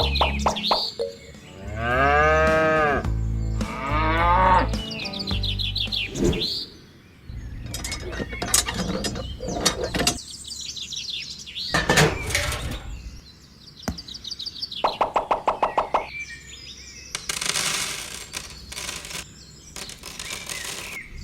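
A string of farm-animal sounds, cattle mooing among them, with bird chirps and short clicks and knocks between the calls.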